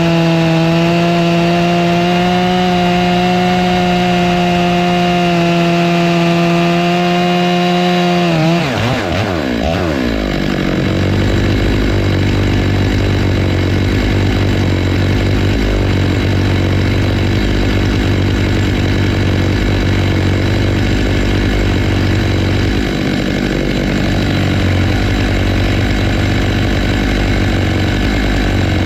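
Stihl MS 661 two-stroke chainsaw on a chainsaw mill, running at steady high revs through a rip cut in black walnut. About eight and a half seconds in the revs fall away sharply and it drops to a low, rough idle.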